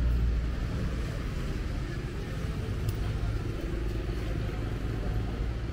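Street traffic: a passing motor vehicle's low engine rumble, loudest at the start and fading away over steady traffic noise.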